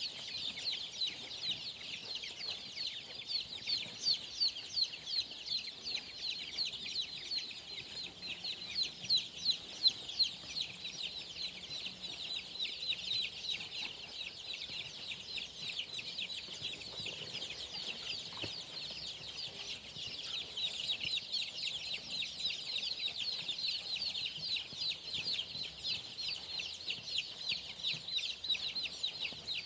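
A large brood of native Khmer rice-field chicks peeping continuously, a dense chorus of many high, short, falling peeps overlapping without a break.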